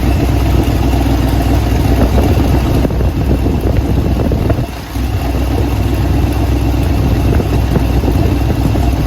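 Ford 460 cubic-inch big-block V8 running steadily at idle, with a brief dip in loudness about halfway through.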